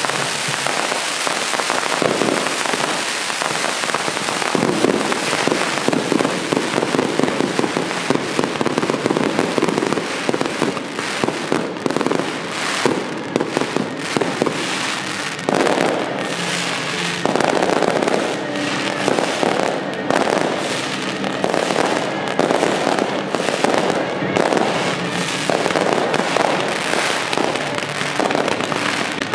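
A dense, unbroken barrage of fireworks: aerial shells bursting one after another amid rapid crackling.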